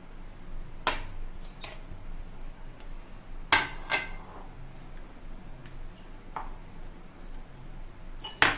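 Kitchenware clinking: a plate and utensils knocking against a glass mixing bowl as chopped ingredients and mashed potato are tipped in, a handful of sharp separate clinks, the loudest a little before the middle.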